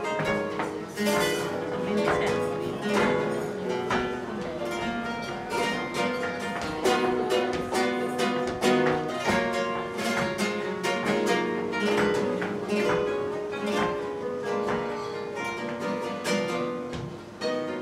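Live flamenco music: acoustic flamenco guitars playing rapid picked and strummed notes, with many sharp percussive strikes throughout.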